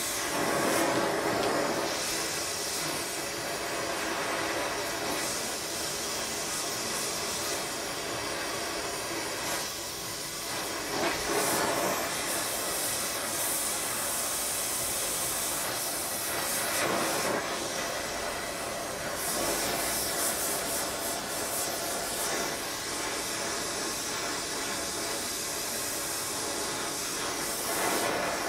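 Gas torch flame hissing steadily as it heats a steel crank web for a shrink fit, swelling in level a few times as the flame is moved over the work.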